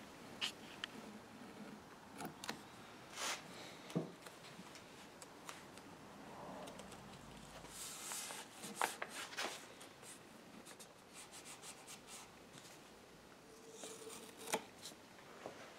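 Blue painter's masking tape being pulled off the roll, torn, trimmed with a craft knife and pressed down by hand on a wooden clock case: scattered faint rips, ticks and rubbing.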